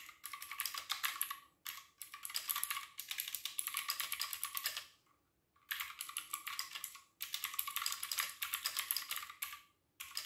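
Fast typing on a wired mechanical keyboard: rapid runs of key clicks, broken by short pauses a couple of seconds in, about five seconds in and near the end.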